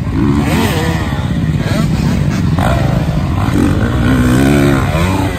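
Dirt bike engine revving up and down repeatedly as the bike is ridden over the track's jumps, getting louder as it passes close by about four seconds in.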